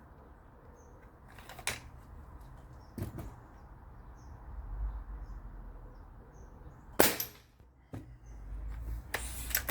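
Air rifle shots at reactive targets in the garden: about four sharp cracks spread out, the loudest about seven seconds in, with pellets striking the targets.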